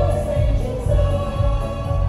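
A group of men and women singing in unison into microphones, holding long notes over amplified backing music with a steady bass beat.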